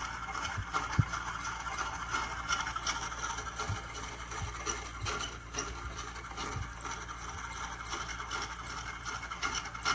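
Scattered clicks, small knocks and rattles of hand tools and metal parts as the blower motor is being taken out of an air conditioner's indoor unit, over a steady low hum.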